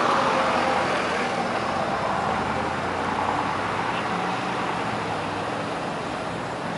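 Road traffic noise: the sound of a passing vehicle slowly fades away over a steady low engine hum.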